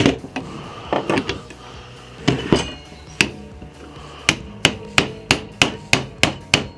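Hammer striking a 17 mm steel socket held against the upper shock bearing in the aluminium eye of a KTM PDS rear shock, driving the worn bearing out. A few irregular taps, then from about four seconds a steady run of about three blows a second.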